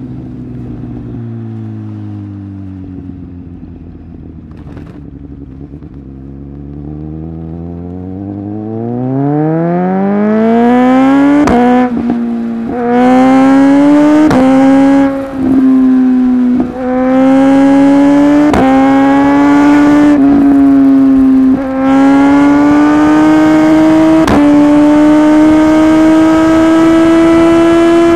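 Suzuki GSX-S1000 inline-four engine slowing off the throttle, then accelerating hard with the revs rising steeply from about seven seconds in. A string of sharp exhaust bangs follows every second or two as the quickshifter cuts ignition on the upshifts, with wind rush building with speed.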